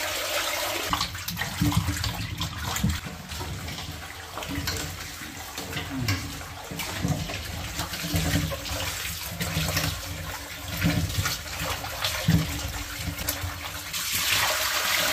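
Kitchen tap running into a stainless steel pot of water while hands rub and turn peeled yam and potato chunks, with irregular sloshing and splashing. The stream of the tap is loudest at the start and again near the end.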